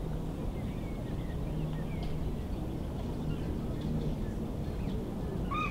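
Outdoor park ambience: a steady low rumble with scattered faint bird chirps, and one louder bird call near the end.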